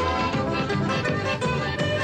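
End-credits theme music: a jaunty instrumental tune with a steady beat.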